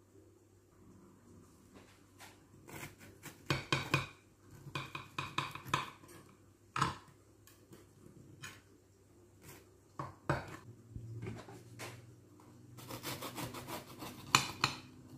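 Kitchen knife cutting a baked cake in a glass baking dish and on a ceramic plate: irregular scrapes and clinks of the blade against glass and china, busiest near the end with one sharp clink.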